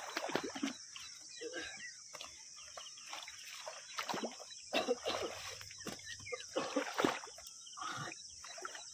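Irregular splashes and slaps of water in short bursts, typical of caught fish thrashing in a full fish trap, over a steady high hiss.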